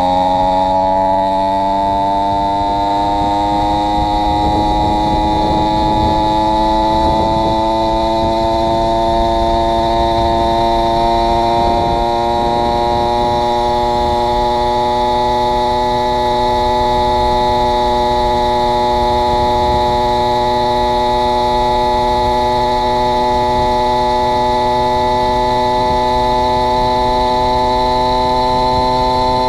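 Two-stroke 80cc-class motorized bicycle engine (AF80 crank, 49 mm cylinder) under way, its note climbing gradually over the first ten seconds as the bike picks up speed, then holding steady at cruising speed. The engine is running on two stacked base gaskets, which the owner found cost it power.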